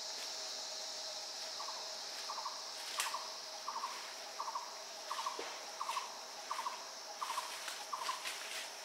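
Forest ambience: a steady high-pitched insect drone, and from about one and a half seconds in a short trilled call repeated about every 0.7 seconds, ten times. A few faint clicks and one sharper snap about three seconds in.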